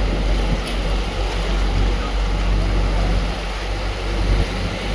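A vehicle driving through a rain-flooded street: a steady low engine and road rumble under an even hiss of rain and water.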